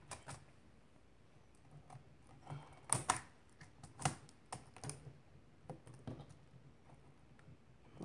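An iBook G3's plastic keyboard being pressed down and seated in the laptop's top case: scattered light clicks and taps as the keys and keyboard are pushed into place, the loudest about three seconds in.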